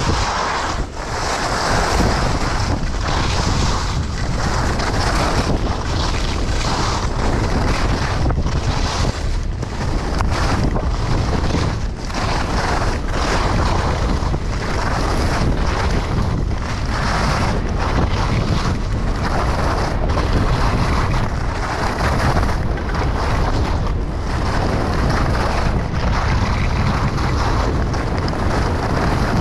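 Wind rushing over a chest-mounted action camera's microphone during a fast downhill ski run, a loud steady buffeting that swells and eases every second or so, with the hiss of skis on snow.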